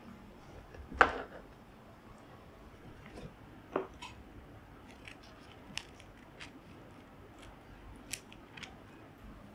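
Kitchen scissors snipping a sheet of dried nori seaweed, a run of short snips through the second half. A single sharp knock about a second in is the loudest sound.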